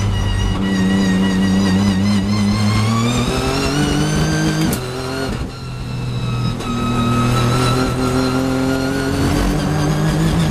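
Nissan GT-R GT3 race car's twin-turbo V6, heard from inside the cockpit, accelerating hard with its pitch rising through the gear. There is a sharp upshift about four and a half seconds in, a brief dip in engine note, then the engine pulls up through the next gear.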